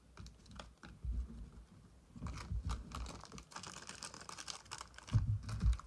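Foil trading-card pack being handled: scattered crinkles and clicks of the wrapper, growing denser about two seconds in, with a few dull thumps near the end.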